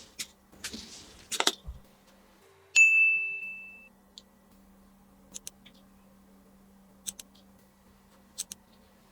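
A few light clicks of small toys being handled, then a single bright ding about three seconds in that rings for about a second, followed by a few more faint clicks.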